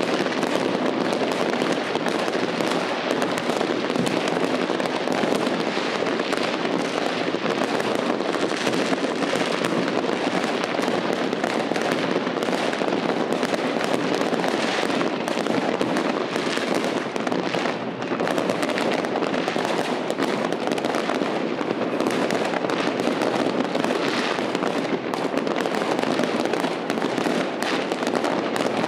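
Fireworks and firecrackers going off in a dense, continuous barrage: unbroken crackling and popping of many charges at once, steady in loudness, with no single bang standing out.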